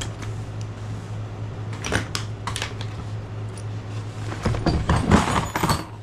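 Hand tools being handled and put into bags: a few sharp clicks and knocks, then a burst of clattering about four and a half seconds in, over a steady low hum.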